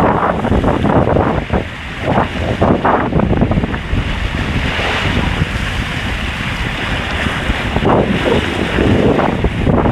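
Water rushing and splashing down an open fibreglass inner-tube water slide as the tube rides through the bends, with wind buffeting the microphone. Loud and continuous, with irregular surges of splashing.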